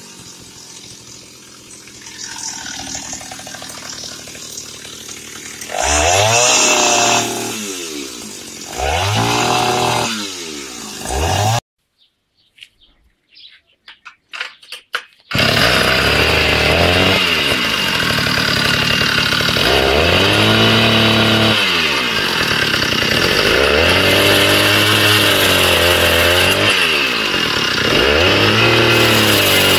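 Two-stroke engine of a Taiga 214 chainsaw converted into a cut-off saw, revved up and down over and over. Near the middle it drops out for a few seconds, then comes back running loud with a rev every three or four seconds.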